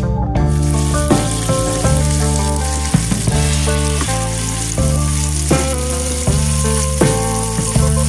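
Vegetables (green beans, small onions, carrots and garlic) sizzling as they stir-fry in a hot pan. The steady sizzle starts about half a second in, over background music.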